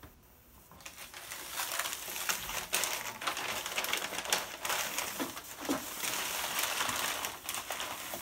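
Soiled newspaper lining a plastic brooder tub being peeled up by hand and crumpled, a rustling, crinkling paper sound with many small crackles that starts about a second in.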